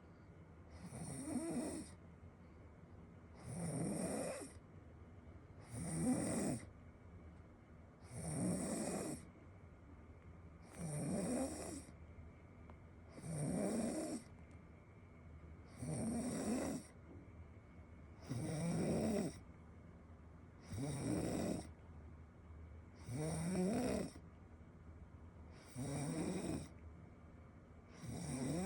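A person snoring loudly in a steady rhythm: about a dozen snores, each about a second long, one every two and a half seconds.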